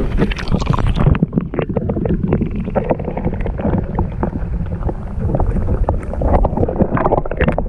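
Muffled water sloshing and clicking against a camera housing as it dips into the lake; about a second in it goes under and the sound turns dull and bass-heavy.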